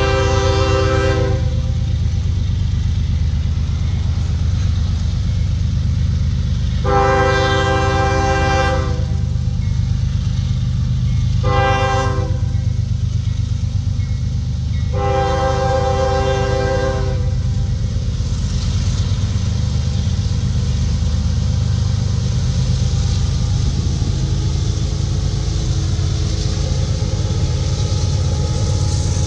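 CSX diesel freight locomotive's air horn sounding the grade-crossing signal: the end of one long blast, then a long, a short and a final long blast. A steady low rumble from the passing train's engines runs underneath.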